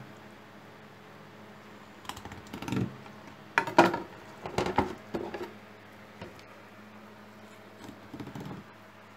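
Scattered short knocks and rustles as a whole scorpion fish is handled and turned over on a cutting board. The loudest cluster comes about four seconds in, with smaller ones around five and eight seconds.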